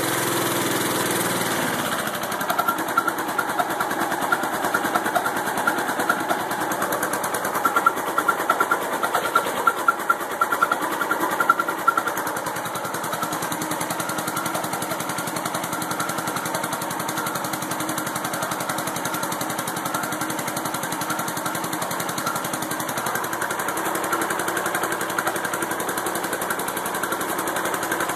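Briggs & Stratton 850 Series single-cylinder lawnmower engine driving a homemade alternator generator under load. Its note drops within the first couple of seconds, it runs unevenly with irregular loud peaks for about ten seconds, then settles into a steady run: the engine bogging down under the starting surge of a refrigerator and freezer motor and recovering.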